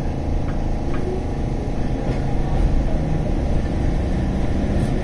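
Steady low hum of an electric train's equipment heard from inside the driver's cab, with a few faint clicks.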